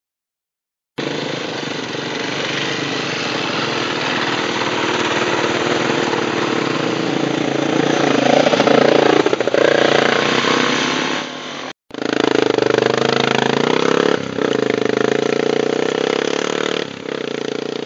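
Off-road motorcycles riding past, among them a Honda XR400 with its single-cylinder four-stroke engine. The engines swell as a bike passes close about halfway through, then run on steadily after a brief break.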